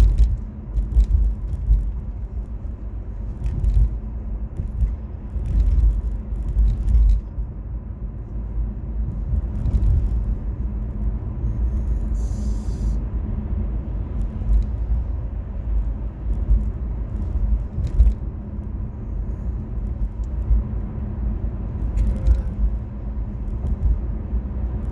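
Inside a moving car's cabin: the steady low rumble of engine and road noise, with a scatter of short clicks and light rattles.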